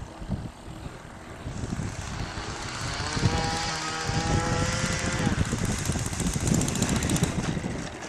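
Engine of a radio-controlled Seagull Sparrowhawk model plane running as it lands and rolls out on grass. A steady engine tone with a low rumble grows louder about halfway through as the plane comes closer.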